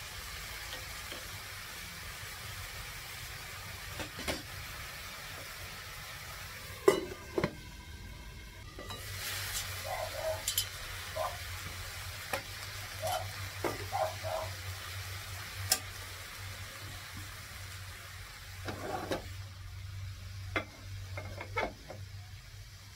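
Vegetables sizzling in a frying pan on a gas burner while a metal ladle stirs and scrapes them, with scattered sharp clinks of the ladle against the pan, the loudest about seven seconds in.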